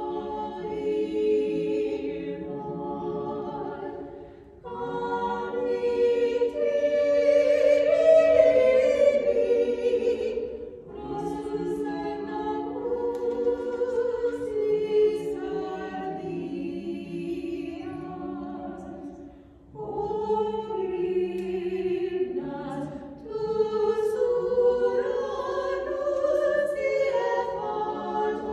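A small choir sings an unaccompanied Orthodox hymn for Holy Week with several voices together. The singing comes in long phrases, with brief breaks for breath between them.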